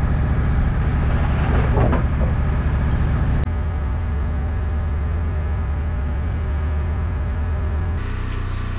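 Wood-Mizer LT15 Wide bandsaw mill's engine running steadily, its hum easing down a little about three and a half seconds in. A short scraping rustle near two seconds in, as a sawn slab is handled.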